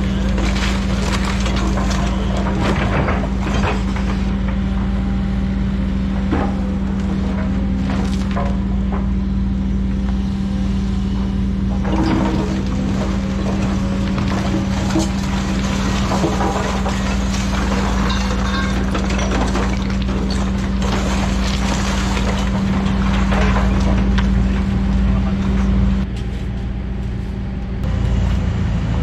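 Tracked hydraulic excavators running steadily while handling demolition rubble: a constant engine drone with repeated clatter and scraping of brick and timber debris as the bucket and grab dig and drop it.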